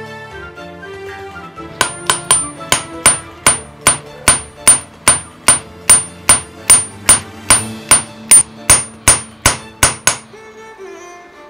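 Hand hammer beating metal on an iron anvil stake, shaping a part of a handmade Kutch copper bell. It strikes in a steady run, about two and a half sharp, ringing blows a second, starting about two seconds in and stopping near the end, over soft background music.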